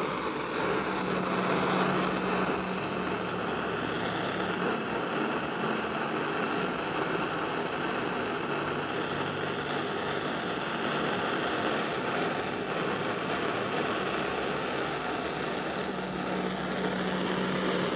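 Gas soldering torch flame burning steadily while silver is heated for soldering, with an electric fan running alongside.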